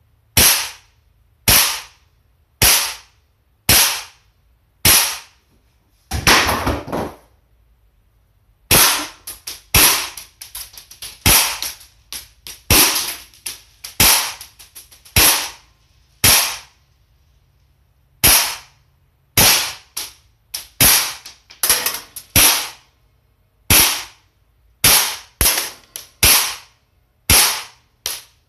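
Gas blowback airsoft Desert Eagle pistol firing a long string of sharp shots. The shots come about one a second at first, then faster, about two a second with smaller clicks between them, through the middle, then back to about one a second.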